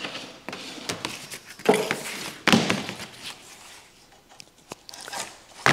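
Handling noise from an extension cord being pulled across a workbench and a power-tool plug being fitted into its socket: scattered rustles and knocks, two louder thumps, and a sharp click near the end. The saw is not running.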